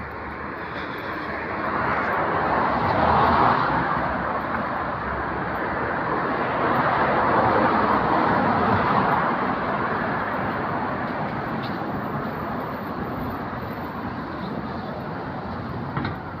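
City street traffic: vehicles passing on the road alongside, a rushing noise that swells louder twice, about three and about eight seconds in, then eases.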